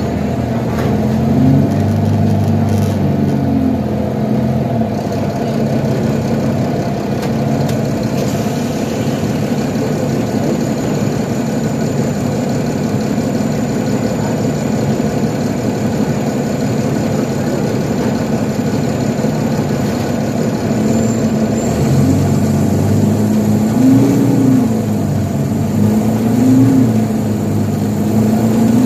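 Nova Bus LFS articulated city bus heard from inside the passenger cabin: the diesel engine pulls with its pitch rising and falling over the first few seconds, settles into a steady running hum with road noise, then rises and falls again several times near the end as the bus speeds up and shifts.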